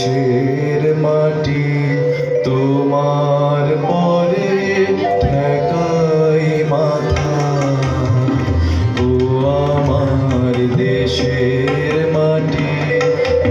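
Live Bengali song accompaniment: a sustained reed-like melody carried over tabla, whose low bass-drum strokes slide in pitch.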